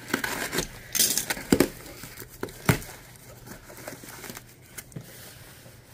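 Utility knife slitting the packing tape on a cardboard box, then the cardboard flaps pulled open with scraping and rustling, broken by a couple of sharp knocks.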